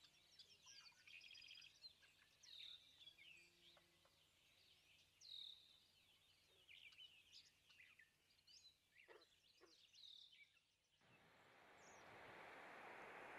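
Faint bird chirps over near silence. About eleven seconds in, a steady hiss fades up: the sizzle of chopped onion and garlic frying in oil.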